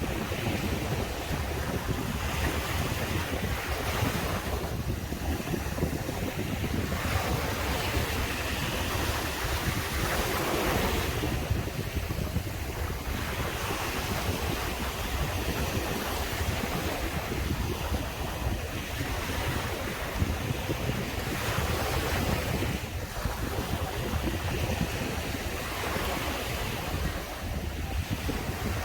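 Sea surf breaking and washing up a beach, swelling every few seconds as each wave comes in, over a steady low rumble of wind on the microphone.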